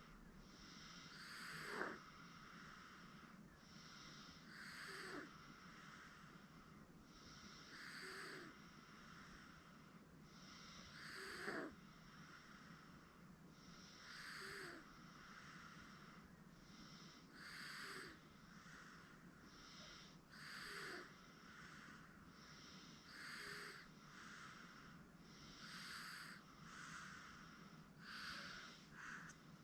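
Sleeping 8-month-old baby snoring softly, a faint breath about every two to three seconds, with louder snores about two seconds in and near twelve seconds. A steady low hum lies underneath.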